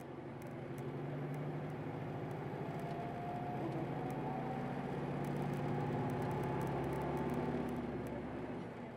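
Hino Blue Ribbon Hybrid city bus under way, its engine running with a thin whine that rises slowly in pitch as the bus gathers speed, then the sound drops away a little before the end.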